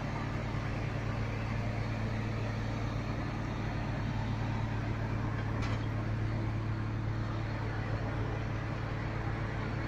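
Boart Longyear drill rig's engine running steadily: a constant low hum over an even mechanical drone, with one faint tick about six seconds in.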